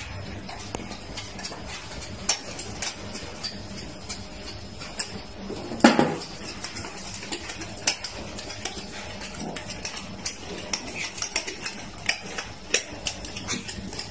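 A small dog walking between rows of plastic bottles on a tiled floor: scattered light clicks and taps, with one louder knock about six seconds in.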